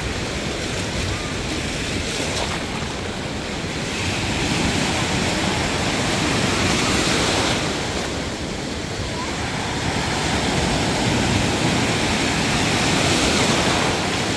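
Ocean surf: waves breaking and washing up the beach in a steady rush, swelling louder twice as sets of waves come in.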